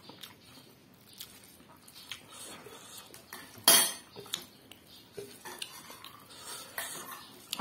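Cutlery clinking against dishes during a meal, with scattered small clicks and one loud clatter about halfway through.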